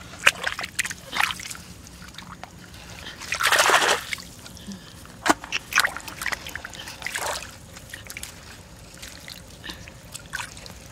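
Shallow water splashing and sloshing in a series of short, irregular splashes, with one longer, louder splash about three and a half seconds in.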